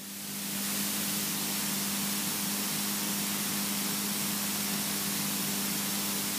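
Steady hiss of a light aircraft's headset intercom feed, with a faint steady hum underneath. The hiss swells up over the first second after the speech cuts off, then holds level.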